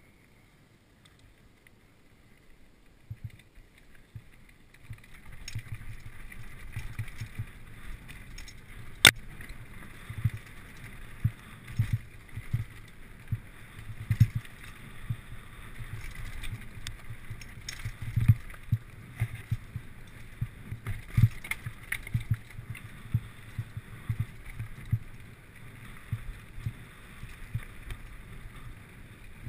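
Mountain bike riding fast down a dirt singletrack: tyres rumbling and hissing over the dirt, with frequent irregular knocks and rattles as the bike bounces over bumps. Quieter at first, it builds after about five seconds as speed picks up, with one sharp clack about nine seconds in.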